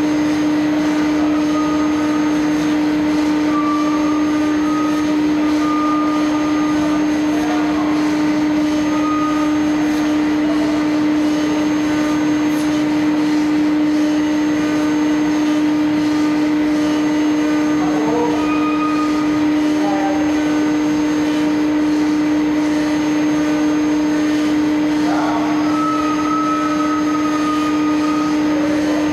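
CNC router spindle running at 18,000 RPM, its steady hum at the spindle's rotation pitch, over the dense noise of an Onsrud 52-624 router bit cutting Precision Board PBLT-15 high-density urethane board at 360 inches per minute.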